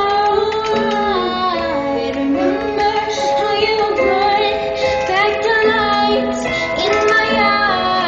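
Music with a high-pitched singing voice: a gliding, bending melody over held low notes that change every second or two.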